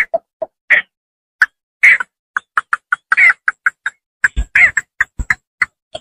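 Cinnamon bittern calling: a run of short, sharp notes repeated in quick succession, with a brief pause about a second in and faster notes, about four or five a second, in the second half.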